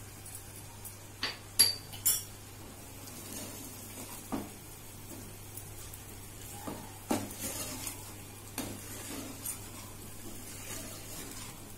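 Wooden spoon stirring chunks of mutton in a metal pressure cooker pot, knocking against the pot. Several sharp knocks come in the first two seconds, followed by softer scrapes and knocks.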